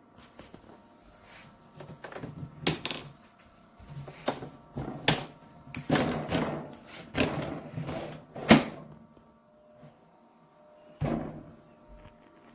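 A series of clunks and knocks from something being handled: about six sharp knocks between two and nine seconds in, and one more near the end, over a faint steady hum.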